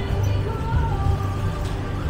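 Music with heavy bass and a faint melody above it.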